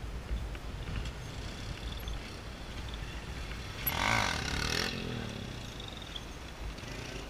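Motorcycle engine revving up and back down once, about four seconds in, over a low steady rumble.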